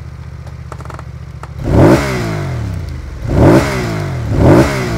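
Small motorcycle engine idling, then revved three times with the throttle, each rev rising quickly in pitch and sinking slowly back to idle.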